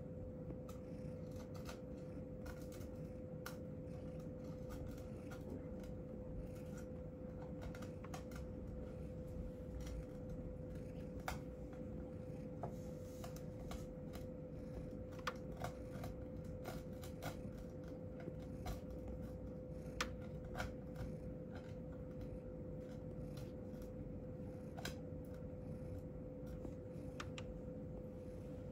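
A steady hum with irregular small sharp clicks scattered through it, a few louder clicks around the middle.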